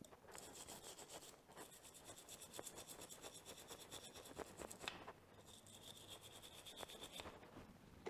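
A small brass-bristle brush scrubbing the wet, soapy pivot of a metal motorcycle rear brake lever to loosen caked-on dirt: faint, quick back-and-forth strokes in three bouts, with short breaks about a second and a half in and about five seconds in.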